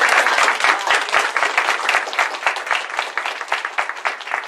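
Group applause, many hands clapping, loudest at the start and gradually thinning out.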